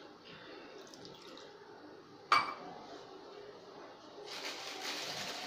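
A kitchen utensil is set down with one sharp metallic clink about two seconds in. From about four seconds a soft, steady hiss rises and carries on.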